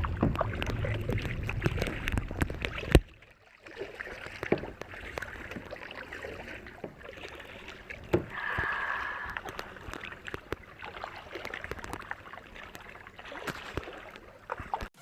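Water splashing and lapping around a kayak as it is paddled, with many small knocks and drips. Wind rumbles on the microphone for the first three seconds, ending in a sharp knock.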